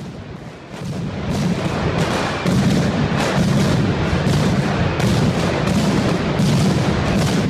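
Mascletà firecrackers going off in rapid succession, thickening after about a second into a near-continuous barrage of bangs.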